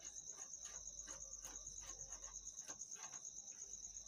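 A cricket trilling steadily, a rapidly pulsing high note, with short scratchy strokes of a marker writing on a whiteboard.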